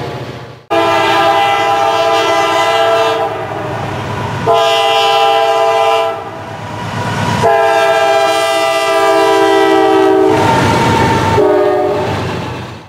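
Freight locomotive air horn sounding a chord of several notes in four blasts: a long one, a shorter one, another long one and a brief last one. The train rolls by underneath. Before the first blast there is a moment of freight cars rolling past.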